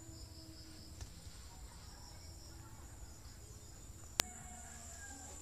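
Faint outdoor ambience of insects droning steadily on a high note, with a single sharp click about four seconds in.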